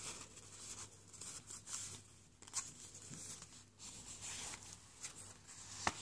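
Faint rustling and soft taps of paper and card being handled: a card tag slid into its journal pocket and the pages turned, with a sharper tap near the end. A faint low hum runs underneath.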